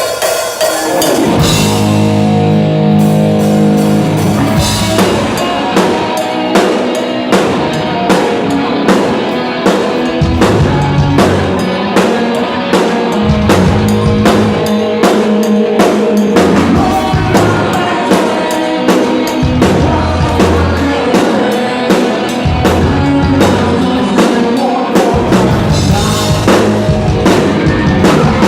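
Rock band playing live, loud, with the drum kit up close: steady regular drum beats over bass and distorted guitar chords, the song's instrumental opening.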